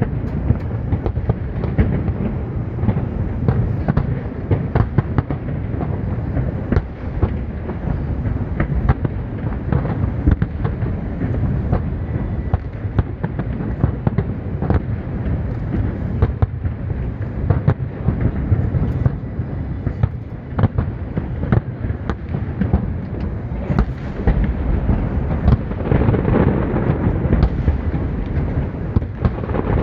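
Fireworks display going off continuously: a constant deep rumble of aerial shell bursts with rapid sharp bangs and crackles layered over it.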